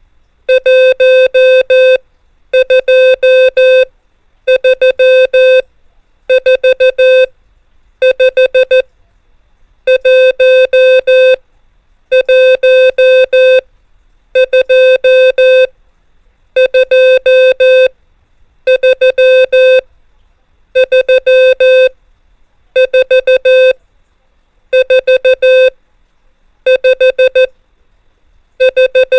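Morse code (CW) practice tone sending the numbers 1 to 5: one steady mid-pitched beep keyed on and off into dots and dashes, one character group about every two seconds with short pauses between them.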